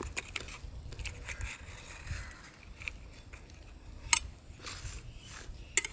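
Knife blade scraping and clicking against the rim of a steel plate as it is run around the edge of a steamed egg cake to loosen it, with sharper ticks of metal on metal about four seconds in and near the end.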